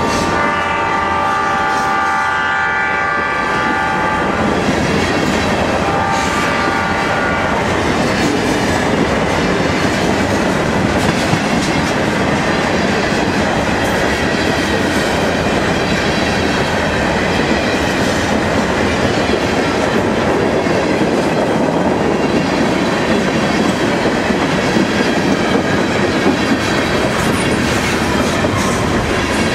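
Diesel locomotive horn on a Huron & Eastern freight train, sounding a chord for the first few seconds and trailing off by about seven seconds in. It gives way to the steady rumble and clatter of freight cars rolling past.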